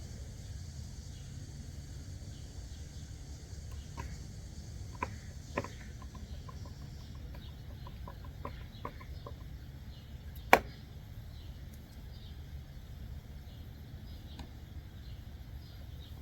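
Small screws being driven by hand into plastic door-panel parts: scattered light clicks, a quick run of ticks from about six to nine seconds in, and one sharp, loud click about ten and a half seconds in, over a steady low rumble.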